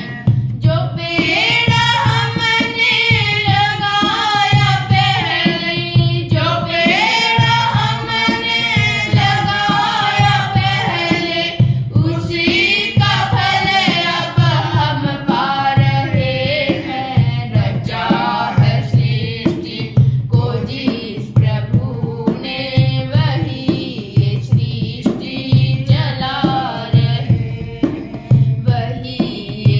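A woman singing a Hindi devotional bhajan over a steady, regular drum beat.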